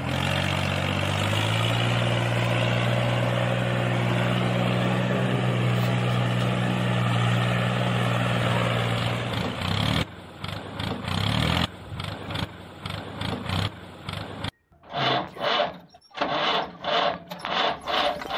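Tractor engine running steadily, its pitch stepping up slightly about a second in, for about ten seconds; after that the sound turns choppy and broken, with a pulsing pattern about twice a second near the end.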